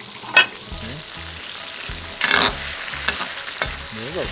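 Beef tenderloin strips frying in a wok of very hot oil, a steady sizzle. There is a sharp click about half a second in and a brief louder burst of sizzling a little past two seconds in.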